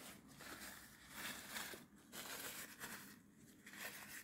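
Faint, irregular rustling and handling noise, swelling and fading a few times.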